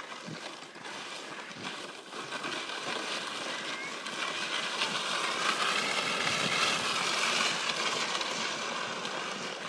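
Sled sliding over an icy, snow-covered road, a steady scraping hiss that grows louder about four seconds in.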